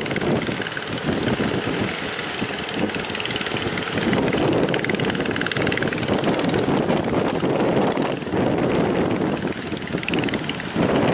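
Strong wind and waves, with a boat's outboard engine running under the noise.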